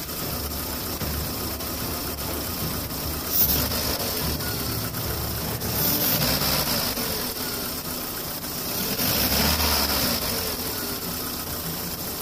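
VW-group 1.6 16v (AZD/BCB) four-cylinder petrol engine idling, its revs rising and falling twice, around six and nine seconds in. The engine is running on three cylinders because of a failed ignition coil.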